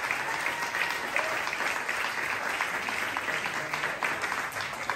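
Small audience applauding, with many hands clapping steadily.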